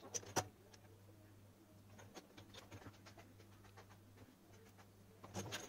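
Faint clicks and taps of a small circuit board, wires and plastic torch housing being handled during soldering, over a low steady hum. Two sharper clicks come right at the start and a few more near the end.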